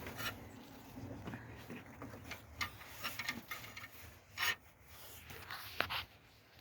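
Hand tools working on car parts: scattered scrapes, rubs and clicks, with a louder scraping burst about four and a half seconds in.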